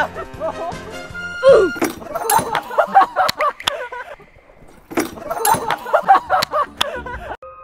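Edited variety-show soundtrack: background music under excited shouting and laughter from a group of people, with several sharp clicks or knocks. Soft piano music comes in near the end.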